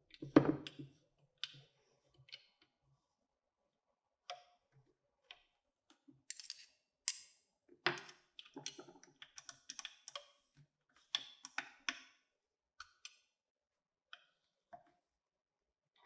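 Irregular small clicks and knocks of hard parts being handled, loudest about half a second in and busiest in the middle.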